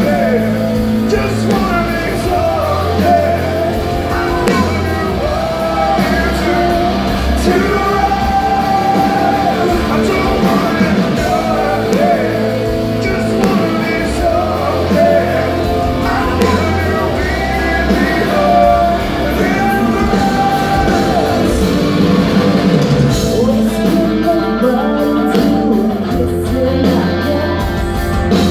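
Live rock band playing with a male and a female singer sharing the vocals as a duet, over electric guitars, bass and drums.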